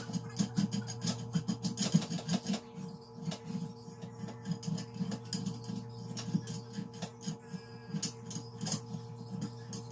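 Background music with a steady beat, over irregular small metallic clicks and taps from hand-assembling a steel desk frame.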